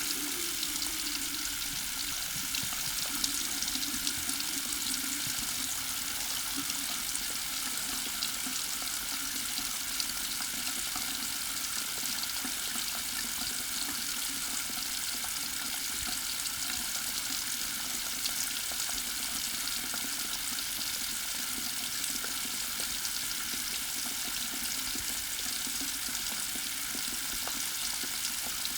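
Faucet running at full blast, a steady rush of water pouring into a sink.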